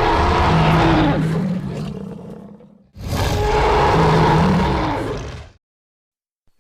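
Dinosaur roar sound effect for Oxalaia, a spinosaurid: a low roar that dies away about three seconds in, then the same roar played again and ending abruptly a little later. A third roar begins right at the end.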